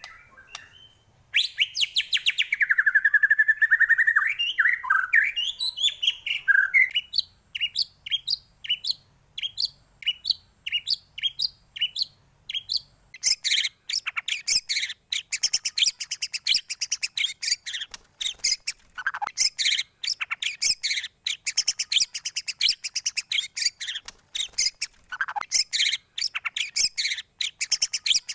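White-rumped shama (murai batu) singing. It opens with a long whistled phrase that glides in pitch, moves into a run of sharp notes repeated about twice a second, then from about halfway breaks into fast, dense, high chirping.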